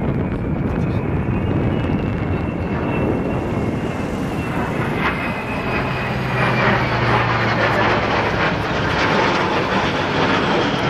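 Engines of a mixed formation flying over: a C-130J Hercules turboprop with two F/A-18 Hornet and two AV-8B Harrier jets. A steady, dense drone that grows a little louder about halfway through.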